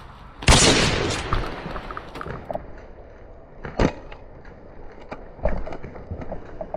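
Airsoft gameplay noise: a loud rustling burst about half a second in, then two sharp single cracks, one just before the 4-second mark and one about a second and a half later, typical of airsoft rifle shots.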